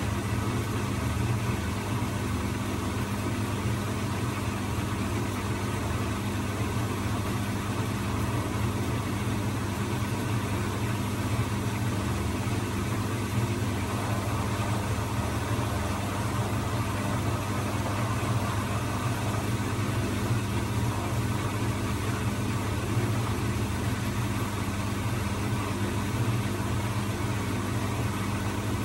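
Bosch front-loading washing machine running, its motor and drum giving a steady low hum with no rise to spin speed. The machine has a fault that keeps it from spinning.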